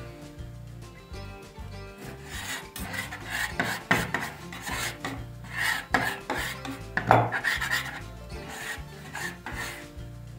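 Metal bench scraper scraping flour and dough crumbs across a wooden pastry board, in a run of rasping strokes through the middle, with one sharper scrape near the end of the run.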